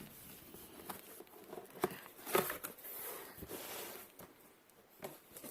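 Cardboard box being opened and its packing handled: scattered faint taps and clicks with soft rustling of cardboard and paper.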